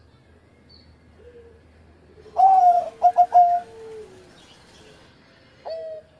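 Zebra dove (perkutut) cooing: about two and a half seconds in, a loud longer note is followed by three quick short notes. A second, lower dove call is held underneath, and another call begins near the end.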